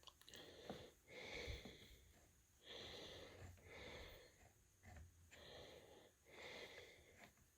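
Faint, repeated breathing, with about six hissy breaths a little over a second apart, and a few light clicks.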